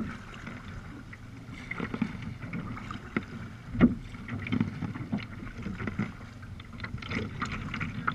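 Sea kayak paddles dipping and splashing in the water in uneven strokes, with one sharp, louder hit nearly four seconds in.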